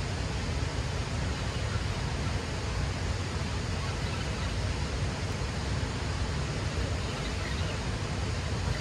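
Steady outdoor rushing noise of wind and moving water at a riverbank, with a strong low rumble and no distinct events.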